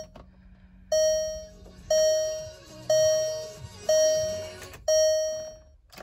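2003 VW New Beetle's instrument-cluster warning chime sounding five times, about once a second, each ding ringing and fading, with the ignition switched on and the engine not yet started.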